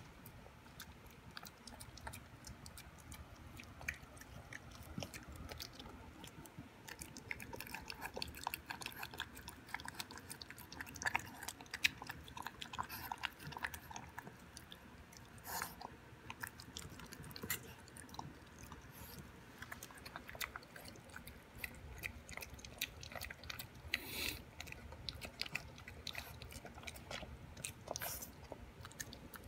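A Boston Terrier puppy eating a raw beef and vegetable dinner from a stainless steel bowl. Wet chewing, smacking and licking, with many small irregular clicks.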